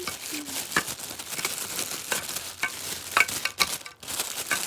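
Plastic packaging crinkling and rustling with small clicks, as a blow-dryer attachment is handled and unwrapped.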